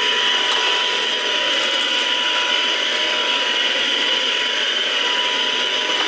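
Ultenic U11 Pro cordless vacuum cleaner running steadily in automatic mode, its motor giving a steady whine over the rush of air.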